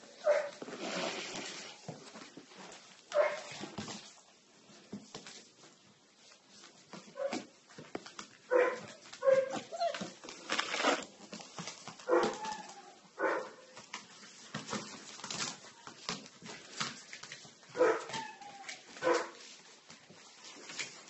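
A dog giving short yips and whimpers, about ten separate calls at irregular intervals, with small clicks and shuffling between them.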